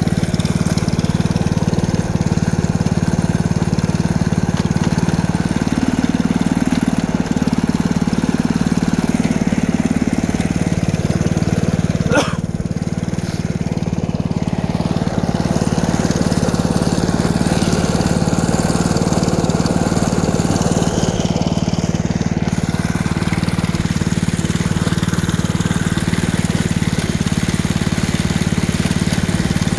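Small gasoline engine of a belt-drive 7.5-inch-gauge ride-on locomotive running steadily as the locomotive travels along the track. A single sharp click sounds about twelve seconds in.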